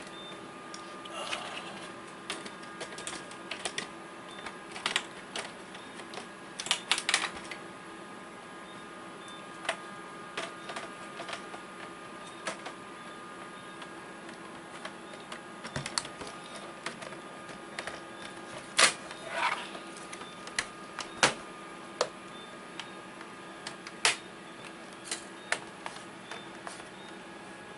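Irregular plastic clicks and knocks of an Acer Aspire E 15 laptop being handled: the battery being fitted back in, and the laptop set down and opened. A steady faint hum runs underneath.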